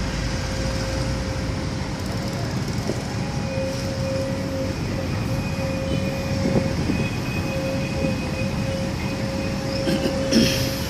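Steady rumble of engines on a construction site, with a constant whine over it and a short knock near the end.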